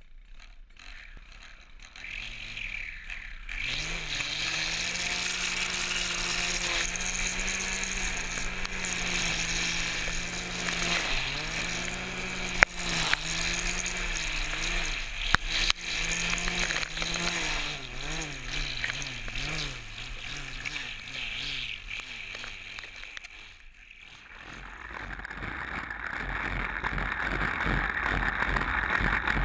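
Gas string trimmer with a Weedshark Pro head running and cutting overgrown grass along a sidewalk edge, its engine note wavering up and down as it takes load. There are a few sharp ticks from debris around the middle. Near the end the engine note gives way to a rougher, louder hiss.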